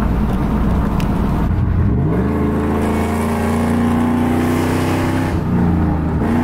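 Pickup truck engine accelerating, heard from inside the cab. Its pitch climbs about two seconds in, holds and sags slowly, then drops and climbs again near the end.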